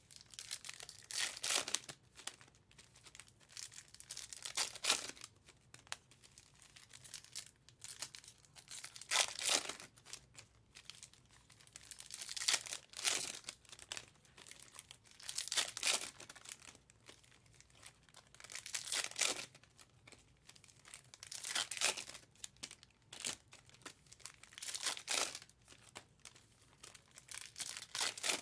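Foil trading-card pack wrappers being torn open and crinkled, with the cards handled between them, in repeated rustling bursts every two to three seconds.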